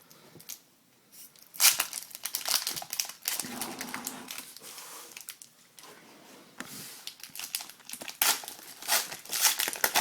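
Plastic wrapper of a hockey trading-card pack torn open and crinkled by hand, with irregular crackles and snaps starting about a second and a half in.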